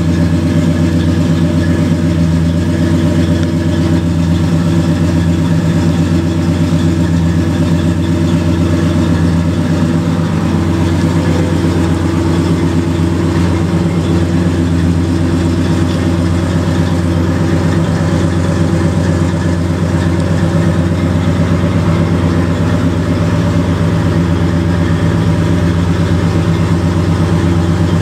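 1970 Dodge D100's 318 V8 idling steadily, with an even low running note and no revving.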